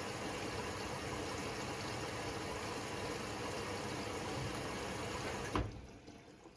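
Hoover Six Sportswear AI130 washing machine taking in water: a steady rush of water that stops with a sharp click about five and a half seconds in, as the inlet valve shuts off.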